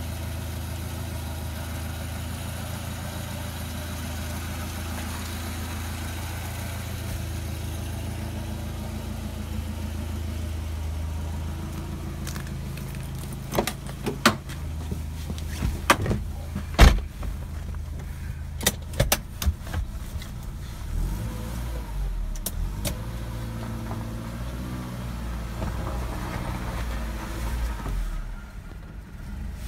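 A BMW E21's engine idling steadily at about 1,000 rpm. About halfway through, a run of sharp clicks and knocks cuts in over the idle.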